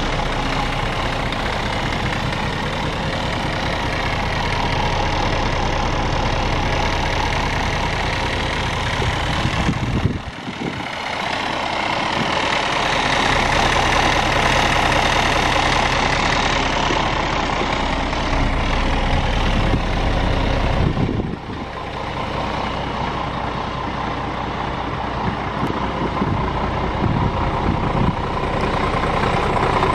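Scania R410 truck's 13-litre straight-six diesel idling steadily. The level drops briefly twice, about ten and twenty-one seconds in.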